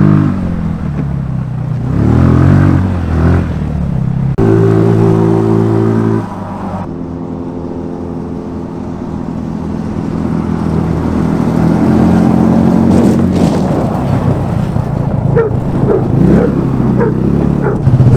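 150cc GY6 single-cylinder four-stroke scooter engine in a Power Wheels jeep, revving up and down as it is driven. It holds a steady high rev for a couple of seconds around four seconds in, then drops back and climbs again more gradually.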